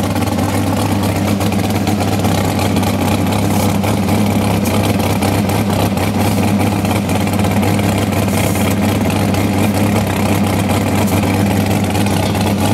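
A steady, unchanging low drone from an engine idling.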